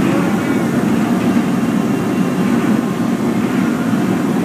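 Steady low roar of a glassworks floor: the furnaces, glory holes and their blowers running continuously.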